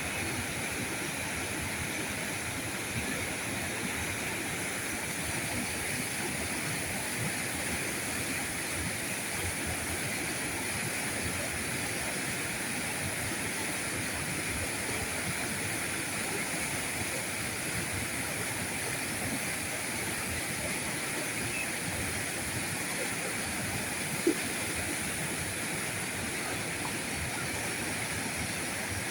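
River current rushing steadily over rocks, an even, unbroken flow of water, with one sharp click about three quarters of the way through.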